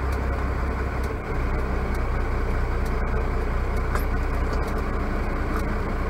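Semi-truck's diesel engine running steadily at low speed, heard from inside the cab as a deep, even rumble.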